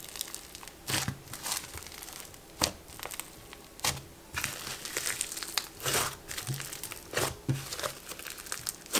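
Crunchy butter slime with white styrofoam pieces being kneaded and pressed by hand: a constant fine crackling, with sharper crunches every second or so as the slime is squeezed and folded.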